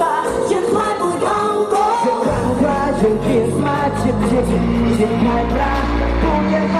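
Pop song with a singer's voice, a steady bass line coming in a little over two seconds in.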